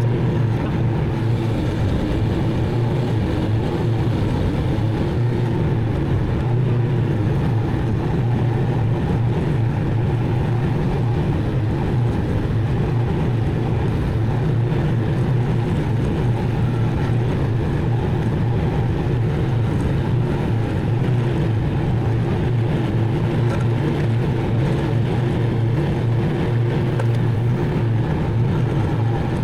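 Zero-turn riding mower engine running steadily at constant speed, a low unbroken drone.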